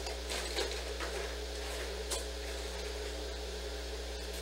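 Steady low hum of room noise, with a few faint knocks and rustles about half a second in and again near two seconds, as a person handles a mat beside wire dog crates.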